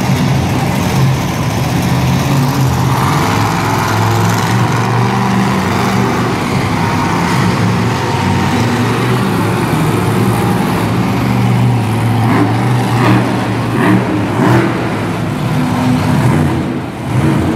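Monster truck engines revving hard, the pitch rising and falling over and over as the trucks spin donuts on a dirt floor.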